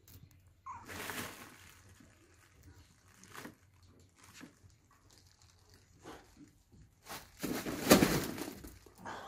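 A cat brushing close against the microphone: scattered rustles and bumps of fur, the loudest a thump-like burst about eight seconds in. A short meow begins right at the end.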